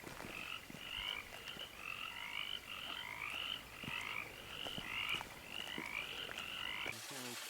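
A chorus of frogs calling, many short chirping calls overlapping at several a second; it cuts off abruptly about seven seconds in.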